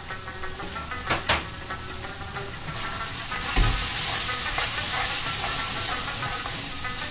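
Lamb pieces sizzling in a steel karahi without oil, frying in their own fat with dry karahi masala, while a metal spoon stirs and scrapes them round the pan. The sizzle swells about three seconds in, with a knock of the spoon on the pan; two sharp clicks come about a second in.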